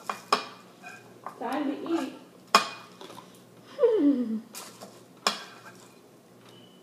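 A metal spoon clinking and scraping against a ceramic bowl several times as it scoops cereal. Between the clinks come two short murmured vocal sounds; the second slides down in pitch.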